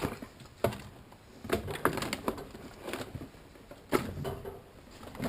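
A handful of separate sharp clicks and knocks, about five, with quiet stretches between them.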